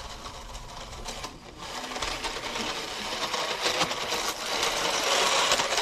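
Small brushless-motor RC tank with 3D-printed tracks running on snow: a fast, steady mechanical buzz that grows louder in the second half.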